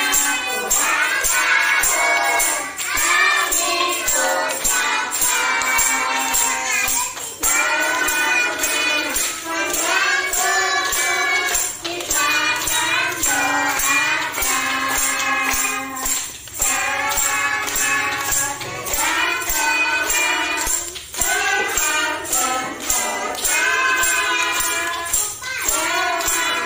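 Background music: a song with a sung melody over a steady, jingling beat.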